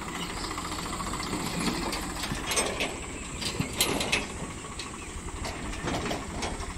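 Tractor engine running steadily under load as it drives a PTO-powered soil-loading machine that lifts soil into a trolley. A few sharp clacks and rattles of the working machine come near the middle.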